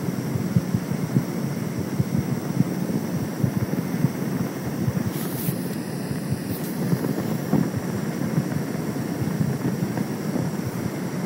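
Wind rushing on the microphone with a steady low hum underneath, from filming on the open river.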